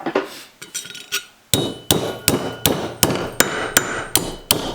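Hammer beating a split, opened-out piece of copper pipe flat on a block of steel: a few light taps, then from about a second and a half in steady blows close to three a second, each with a short metallic ring.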